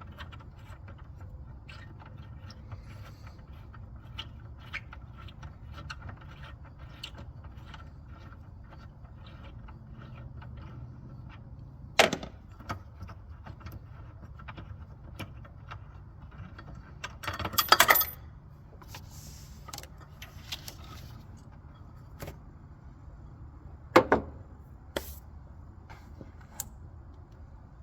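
Hand tools working on an EGR valve: a socket ratchet clicking in short runs, and metal tools clattering loudly three times.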